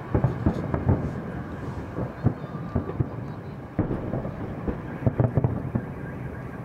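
Aerial fireworks shells bursting overhead: a run of sharp bangs, some in quick clusters, with a low rumble between them.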